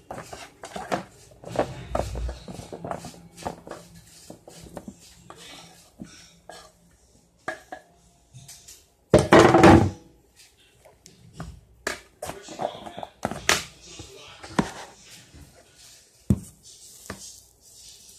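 Kitchen clatter while cooking: a run of irregular knocks and taps, with one loud, rough noise about nine seconds in that lasts under a second.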